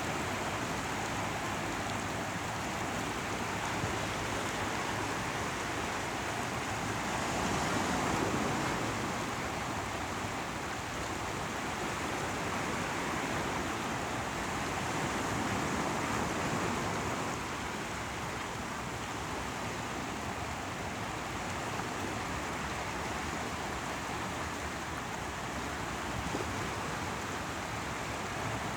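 Sea waves washing in, mixed with running water, making a steady wash of water noise that swells gently about eight seconds in and again around fifteen seconds.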